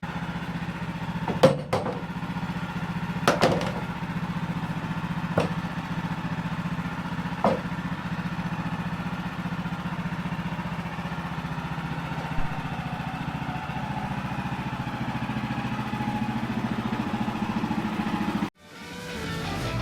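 An engine running steadily, with four sharp knocks about two seconds apart in the first half; it cuts off abruptly about a second before the end.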